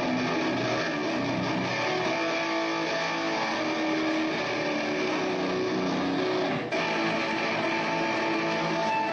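Amplified electric guitar playing with bass underneath, band music from a live sound check, with a brief drop in the sound about two-thirds of the way through.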